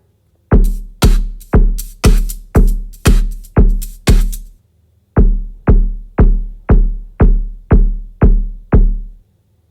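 Electronic kick drum from a drum machine beating steadily about twice a second, each hit a deep boom that fades quickly. There are two runs of eight beats with a brief break between them.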